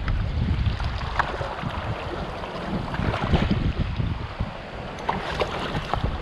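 Shallow stream rushing over rocks, with wind buffeting the microphone. A few sharp knocks and clicks come as stones are set around a bamboo rod holder to wedge it into the riverbed.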